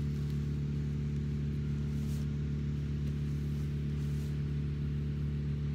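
Steady low mechanical hum of a running motor, holding one pitch with no rise or fall.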